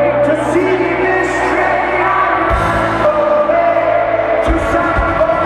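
Live indie rock band playing, with sung vocals over guitar and bass; low drum hits come in about halfway through.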